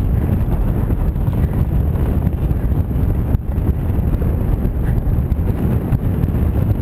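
Steady wind buffeting on the microphone of a camera mounted on a moving pedal car, over the low rumble of the car rolling on tarmac.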